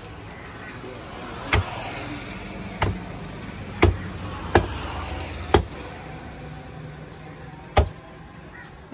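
Large knife chopping tuna on a wooden log chopping block: six sharp chops at uneven intervals, the fourth and fifth close together, with a low steady hum behind the middle strokes.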